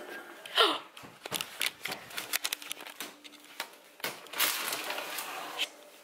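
Rustling and knocks from a handheld camera carried in a hurry. About four seconds in comes roughly a second of hissing from a saucepan of water boiling on an electric glass-top stove, a pan left on the heat and forgotten.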